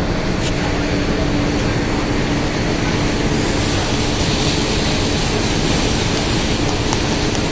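Boat engine running steadily, a constant hum under a wash of wind and water noise.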